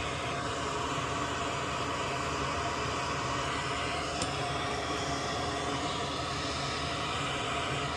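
Steady hum and hiss of a small fan or blower running at the repair bench, with one faint tick about four seconds in.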